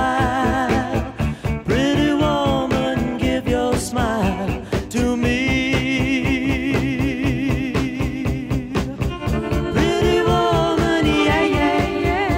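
Live rock-and-roll band playing to a steady drum beat, with a male singer's voice over the band.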